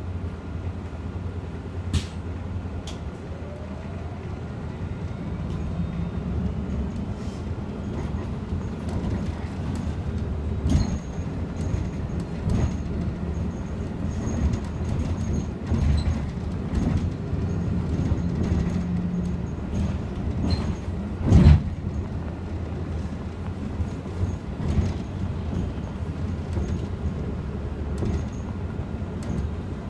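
Cabin sound of an Iveco Urbanway 18 Hybrid articulated bus on the move: a steady low hum of the drivetrain and road, with scattered clicks and rattles. A single sharp knock about two-thirds of the way through is the loudest sound.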